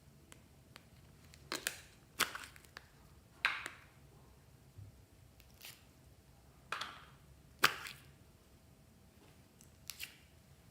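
Glossy slime being squeezed and worked by hand, giving sharp pops and crackles about seven times at irregular intervals.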